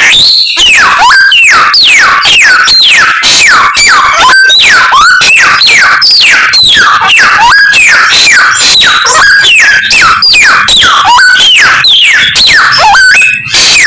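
A samyong songbird singing a rapid string of loud, sharply falling whistles, about two to three a second, without a break. These are the mimicked phrases of other birds ('isian') that make up its song.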